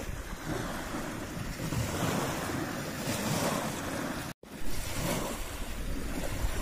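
Steady wind noise buffeting the microphone, rumbling and rough, with a brief complete dropout a little over four seconds in.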